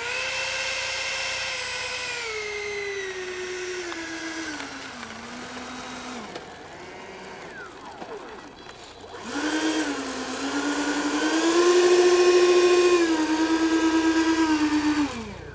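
Electric motors of an RC Su-35 model jet whining under throttle on the ground: the pitch falls and fades over the first several seconds, climbs again about halfway through, is loudest a couple of seconds later, steps down and cuts off at the end.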